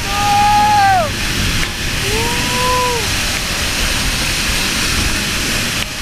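Waterfall rushing steadily, heavy falling water crashing into its pool in a dense, even roar of noise. Over it are two short pitched calls: the first rises and then falls away about a second in, and a lower one comes about two seconds in.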